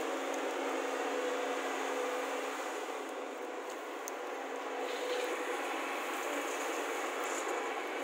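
JCB backhoe loader's diesel engine running steadily.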